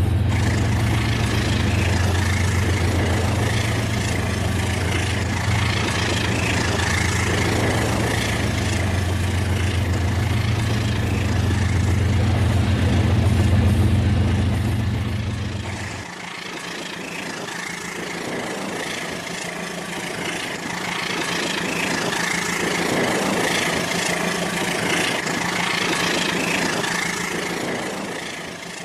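Battery-powered Rail King toy train running, its small motor humming with a low pulsing drone over the rattle of wheels on the track; the low drone drops away about 16 seconds in while the higher running noise carries on.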